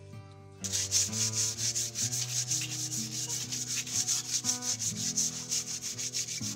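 Fast, rhythmic scrubbing strokes, several a second, as a green leaf is rubbed hard along the wet, slimy skin of a large pangas catfish to clean it. The strokes start a little under a second in, with soft background music underneath.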